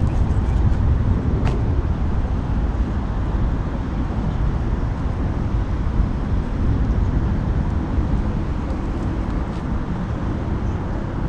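Steady low rumble of road traffic from the highway bridge running alongside.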